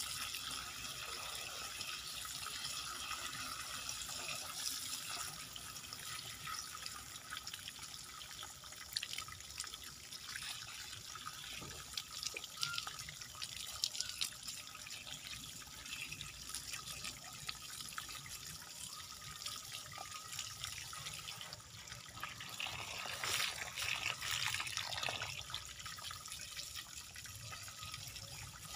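Water from a garden hose splashing and trickling over a bonsai's exposed roots and rock as soil is washed off them. The splashing gets briefly louder a few seconds before the end.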